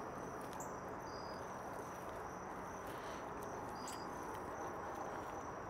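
Crickets chirping: a steady high trill, with two short chirps about a second and four seconds in, over a low steady background hiss.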